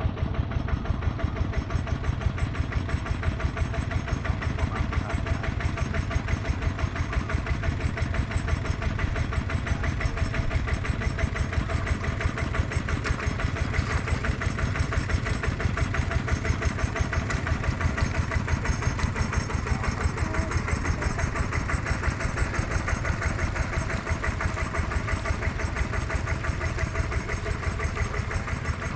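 A small engine running steadily at a low, even speed, its beat regular throughout.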